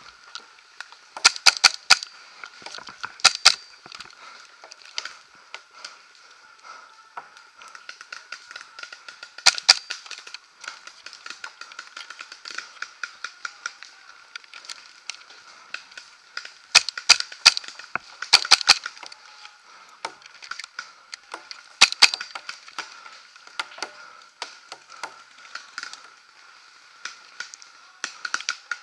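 Magfed paintball marker firing close by in about six short bursts of two to four shots, over a steady scatter of fainter shots from other markers around, with a faint steady high tone underneath.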